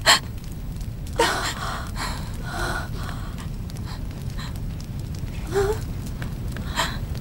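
A person gasping and breathing in several short, breathy gasps a second or more apart, some with a brief catch of voice, over a low steady rumble.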